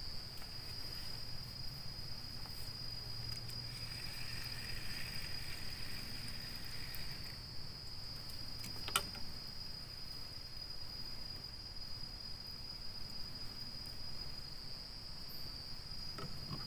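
Insects trilling: one steady, unbroken high-pitched tone with a faint low hum beneath it. A single sharp click comes about nine seconds in.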